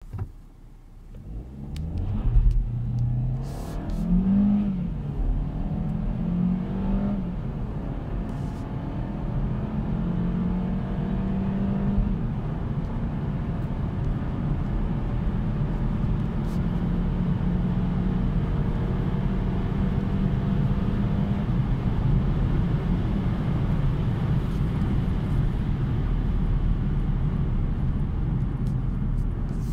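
Kia ProCeed 1.5 T-GDi turbocharged four-cylinder petrol engine, heard from inside the cabin, accelerating hard from almost a standstill. In the first several seconds the revs climb and drop back at each quick shift of the 7-speed dual-clutch gearbox. After that the engine runs steadily at about 4,500 rpm with road and wind noise.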